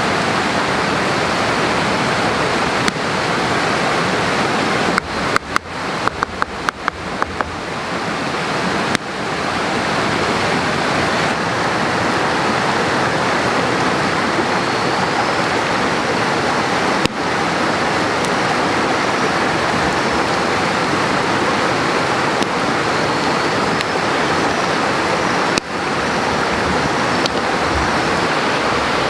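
Steady rushing of running water. About five seconds in comes a quick run of about a dozen sharp clicks, and a few single clicks follow later.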